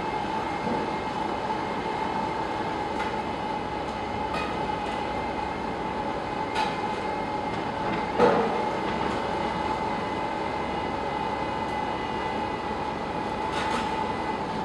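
Bore-piling rig running steadily with a constant mechanical drone and a steady whine, without loud repeated knocking. A few light clanks break through, the loudest about eight seconds in.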